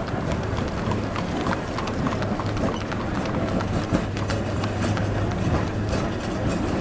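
Horse hooves clip-clopping on a paved street, many irregular hoof strikes, over a steady low hum.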